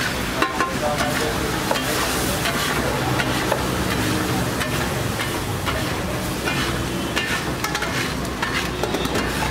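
Egg mixture sizzling and steaming on a large flat street-food griddle (tawa), with a flat spatula scraping and clicking against the griddle surface again and again as it is worked.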